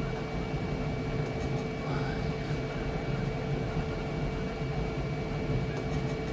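Flashforge Adventurer 5M Pro 3D printer running mid-print: a steady hum of its fans and stepper motors, with a constant whine over it.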